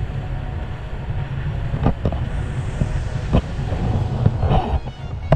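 Wind buffeting an action camera's microphone in paraglider flight, a steady low rumble, with a few short knocks.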